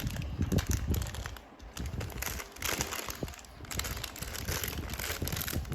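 Plastic Lego Duplo pieces being handled and fitted together: a run of irregular small clicks and knocks, with a brief lull about a second and a half in.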